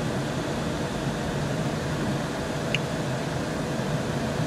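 Van engine and road noise heard from inside the cabin: a steady low rumble, with one brief high chirp about halfway through.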